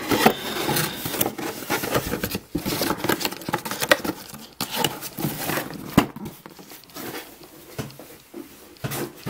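Cardboard boxes and packaging handled by hand: irregular rustling and scraping with sharp knocks, the loudest a few seconds in, as boxes are moved and lifted.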